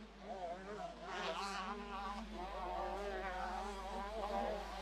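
Motocross bikes' engines buzzing as they race round the track, pitch rising and falling as the riders work the throttle.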